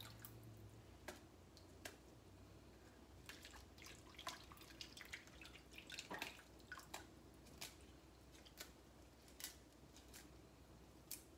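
Faint, scattered snaps and drips: fresh mustard green leaves being picked apart by hand over a bowl of soaking water, with water dripping off the wet leaves.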